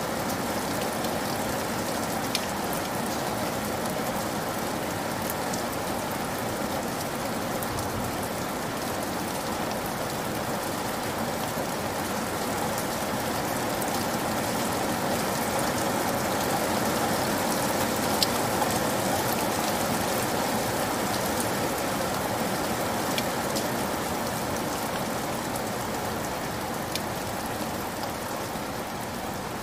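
Heavy rain splashing onto a wet surface: a steady hiss with occasional sharper drop hits.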